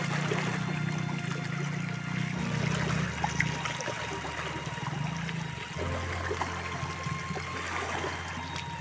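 Shallow sea water trickling and lapping among shoreline rocks, with a steady low hum underneath that drops lower about six seconds in.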